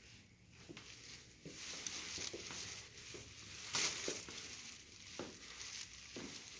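Soft footsteps, about one a second, under scratchy rustling from a handheld camera being carried while walking.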